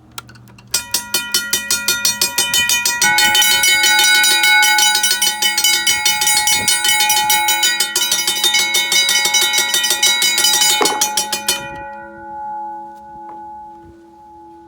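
Mechanical railroad crossing bell ringing, its electric striker hammering the gong in rapid even strokes. The ringing starts about a second in and grows fuller about three seconds in. The strokes stop near the end, leaving the bell's tone to hum and fade.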